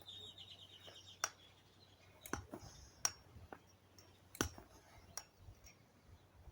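Air Venturi G9 high-pressure hand pump being stroked, filling the air rifle's reservoir: a sharp click about once a second, some strokes followed by a brief hiss of air.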